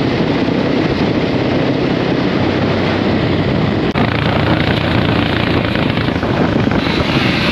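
Motorcycle engines running at road speed with steady wind rush and rumble on the microphone, heard from a moving motorcycle. A brief dip and click about four seconds in.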